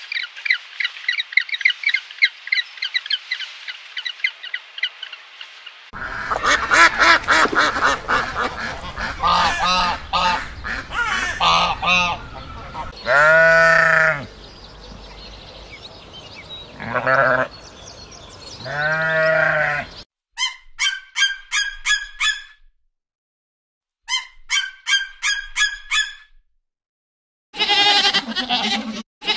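A series of animal calls: rapid, rhythmic pulsed calling of Adélie penguins for the first six seconds, then a noisier stretch with two long drawn-out calls, two short runs of quick repeated chirps, and goats bleating near the end.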